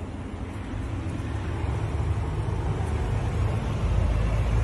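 Low, steady rumble of street traffic, an engine hum that grows gradually louder.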